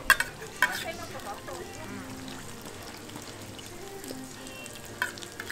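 Hotteok frying on a griddle, a steady sizzle, with a few sharp clicks in the first second and another near the end, and faint voices in the background.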